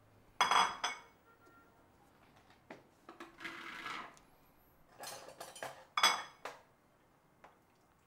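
A ceramic bowl is set down on a granite worktop with a ringing clink about half a second in. A short rustle follows around three and a half seconds, then a few small clicks and another ringing crockery clink about six seconds in.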